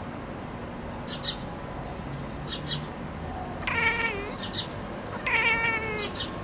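Domestic cat chirping at birds: two drawn-out, wavering chirping calls about halfway through and near the end, with short, high chirps coming in pairs throughout.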